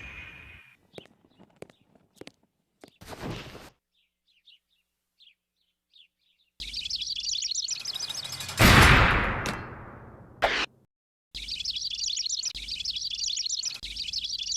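A string of separate cartoon sound effects: a few faint clicks and short chirps, then a rapid high twittering, cut through about two seconds later by a loud blast that falls away in pitch, with the twittering returning near the end.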